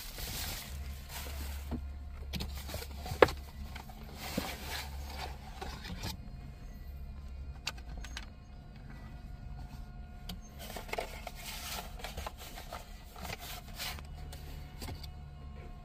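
Tissue paper and plastic packaging rustling and crinkling as a dash camera and its plastic cover are unwrapped and handled, with scattered small clicks and one sharp click about three seconds in.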